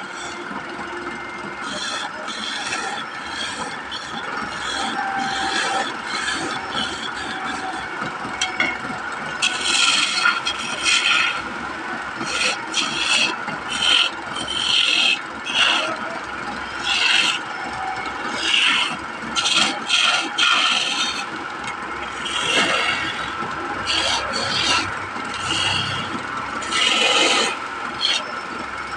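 Wood lathe running with a steady whine while a hand-held turning chisel cuts the spinning wooden blank, a scraping, rasping cut in repeated short passes. The passes come more often and louder from about ten seconds in.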